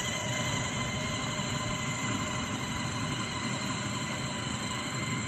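Electric drive motors of a remote-control motorized cooler whining steadily at high speed while climbing a steep incline under load, a full cooler of soda and ice with 25 pounds of ballast on top.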